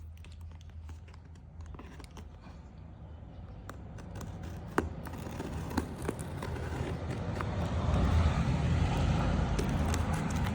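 Watch box and packaging being handled: scattered clicks and crinkly rustling over a steady low hum that grows louder through the second half, with two sharper clicks about five and six seconds in.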